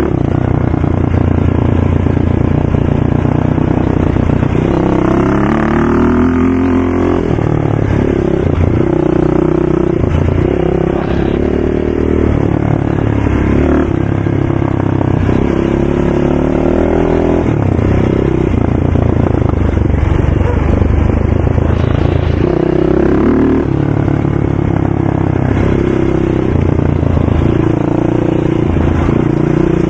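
ATV engine running hard, revving up and dropping back again and again as the throttle is worked and the gears change.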